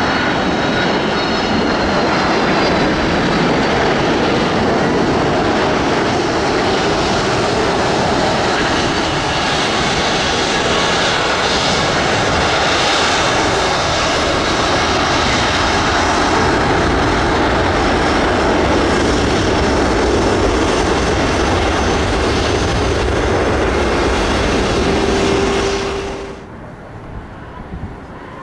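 Jet airliner engines, loud and close: a steady, dense roar that cuts off abruptly about 26 seconds in, leaving a much fainter aircraft drone.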